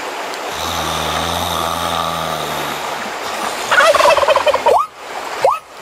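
A sleeping man's low, drawn-out snore, then a turkey gobbling loudly about four seconds in, followed by short rising bird calls about twice a second near the end.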